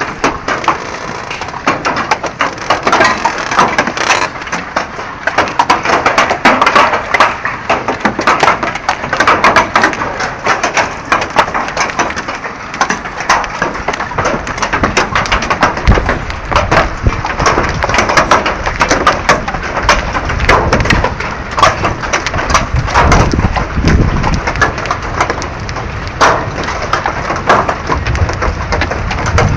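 Hail falling: a dense, continuous clatter of hailstones striking, with a low rumble joining about halfway through.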